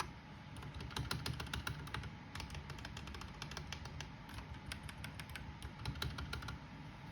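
Typing on an RK G68 mechanical keyboard with stock RK red linear switches: a fast, irregular run of keystrokes that stops near the end.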